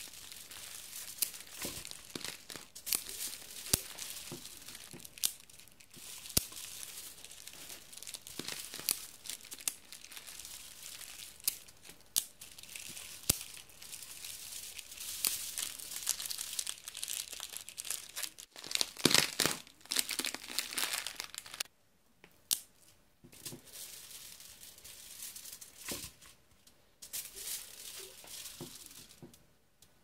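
A plastic sweet wrapper, a crisp packet, crisps and foil crumpled and crushed by hand in a dense run of crinkling crackles that imitate a crackling fire. The loudest flurry comes about two-thirds of the way through, after which the crackling thins out.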